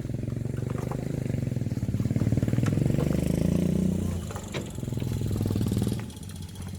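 An engine running with a fast, even beat, swelling louder twice and falling away about six seconds in.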